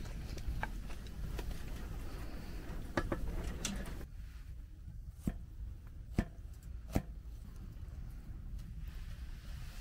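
A crisp, crumb-coated fried sandwich handled with a wooden spatula on a wooden board, with light scrapes, then a few sharp crunches and knocks a couple of seconds apart as the board is set down on a wooden table and the crust is broken open by hand. A low steady rumble runs underneath until a cut about four seconds in, after which the background is quieter.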